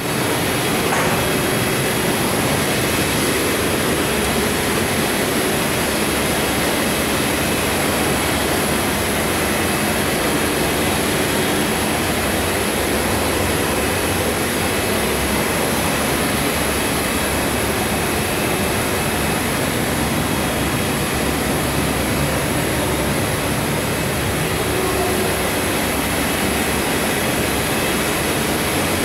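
Steady factory noise of running machinery and ventilation: an even rush with a few faint steady tones, including a high whine.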